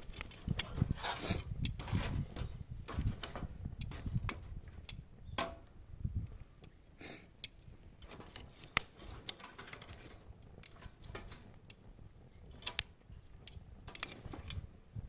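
Wood bonfire crackling: irregular sharp pops and snaps, with low thuds in the first few seconds.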